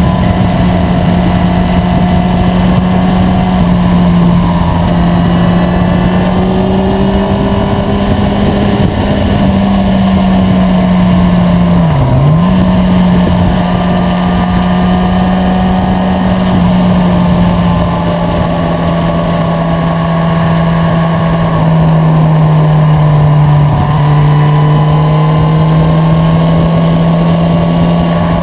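Motorcycle engine running steadily at cruising speed over a constant rushing noise. Its note dips briefly about twelve seconds in, then settles at a lower pitch a little past twenty seconds.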